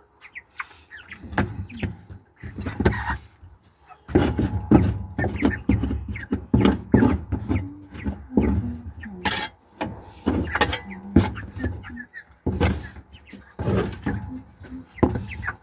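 Irregular knocks, thunks and scraping as old sawdust bedding is cleared out of a chicken pen.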